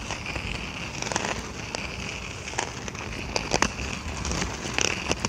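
Rubber skate wheels rolling over rough, bumpy pavement: a steady gritty rumble with scattered sharp clicks and knocks.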